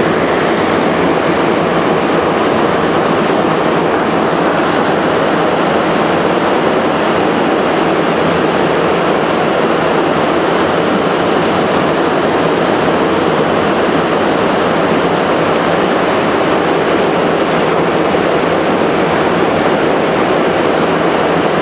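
Steady, loud running noise inside an MR-73 metro car travelling through a tunnel on its rubber tyres.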